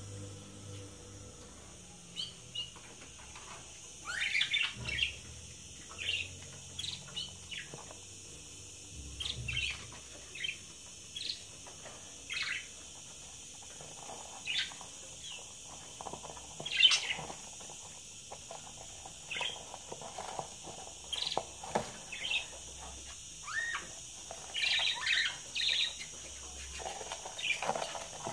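Budgerigars chirping in short, scattered calls, the loudest a little past the middle.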